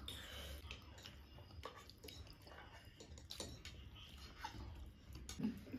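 Faint chewing and eating sounds, with a few scattered small clicks.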